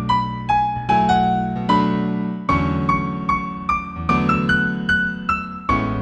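Slow new-age piano music in A major: a melody of single struck notes over sustained chords and bass.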